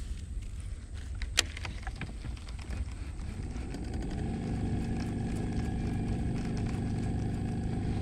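Electric bow-mounted trolling motor running with a steady hum: it comes on about four seconds in and stops suddenly at the end. A few light clicks come before it.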